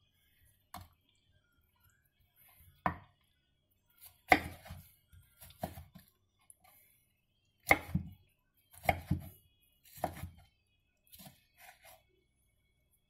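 Kitchen knife chopping tomato on a wooden cutting board: about a dozen irregular knocks of the blade against the board, the loudest about four and eight seconds in.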